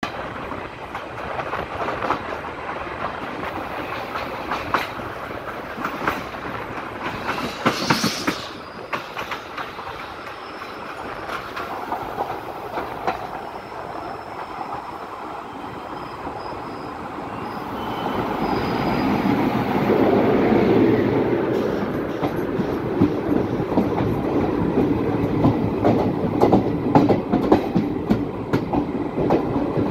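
Passenger train running, heard from beside its coaches: wheels clattering over the rails. A little past halfway a freight train of open hopper wagons, hauled by an electric locomotive, starts passing on the next track and the sound grows louder and busier with wheel clatter.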